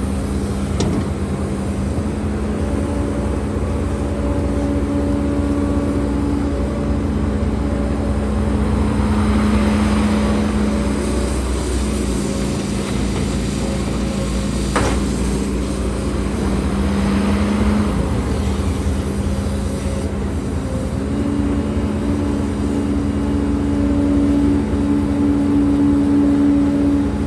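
Hidromek HMK230LC excavator's diesel engine running steadily under working load, its pitch shifting several times as the load changes. There is a single sharp knock about halfway through.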